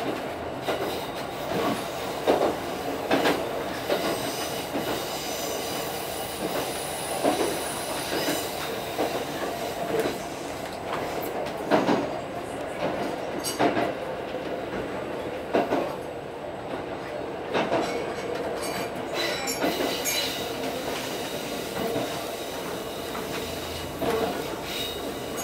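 Diesel railcar running on single track: a steady running noise with irregular wheel clacks over rail joints every second or two, and a faint high wheel squeal for a few seconds early on a curve.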